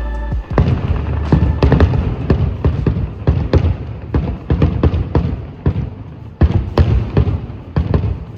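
Fireworks finale: a rapid barrage of firework bangs, several a second, with short lulls near the end. A held musical chord stops about half a second in, just as the bangs begin.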